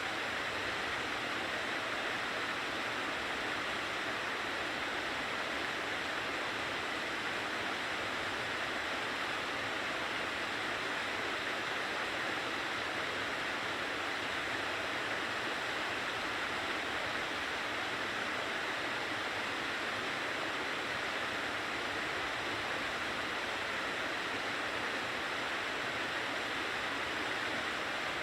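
Steady, even rush of mountain water cascading over rocks.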